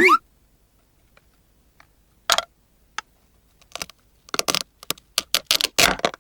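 Small plastic toy pieces and packaging being handled: sparse sharp clicks and crackly rustles that start about two seconds in and come thicker near the end. A brief cartoon sound effect with a sliding pitch opens the stretch.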